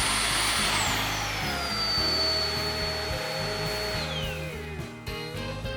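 Roidmi X20 cordless stick vacuum's motor running with a high whine that drops to a lower pitch about a second in as the suction level is stepped down. It holds steady, then winds down in a falling glide near the end as the motor spins down.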